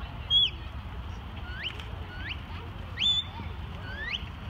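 Herding whistle commands to a working border collie: five short, pure whistle notes. Two are held high and then drop, about half a second and three seconds in, and are the loudest. Three are quick rising sweeps.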